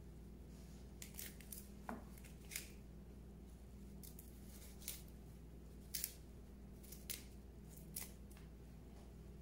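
Faint, irregular crisp snaps and crackles as huauzontle flower clusters and stalks are pulled apart and stripped by hand, over a steady low hum.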